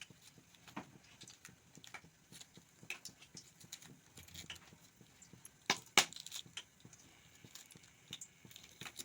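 Scattered light clicks and taps of kitchen handling, with two sharper knocks close together about six seconds in.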